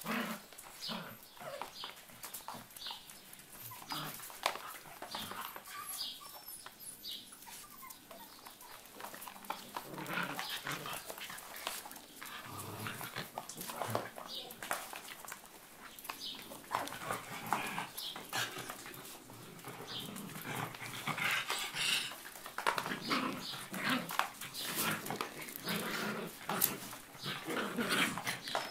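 Shetland sheepdogs play-fighting, with short, scattered dog vocalisations and scuffling that get busier and louder in the second half.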